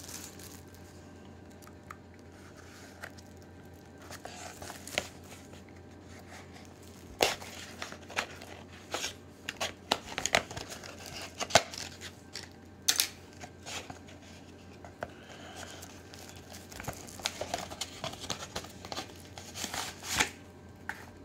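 Plastic shrink-wrap being picked at, torn and peeled off a Blu-ray case, crinkling with scattered sharp crackles and snaps.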